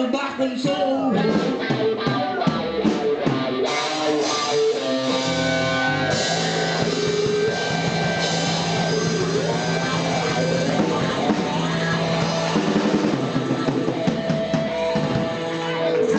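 Blues-rock band playing, with guitar and drums.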